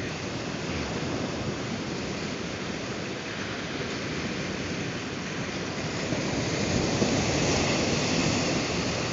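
Ocean surf washing up on a beach: a steady rushing noise that swells louder about six seconds in.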